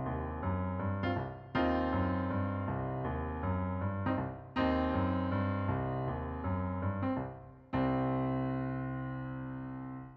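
Background piano music: slow chords struck about every three seconds and left to ring, the last one fading out near the end.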